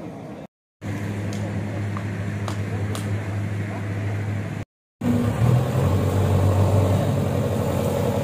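Diesel engine of a backhoe loader running with a steady low hum, then louder and rising in pitch from about five seconds in. The sound drops out suddenly twice for a fraction of a second.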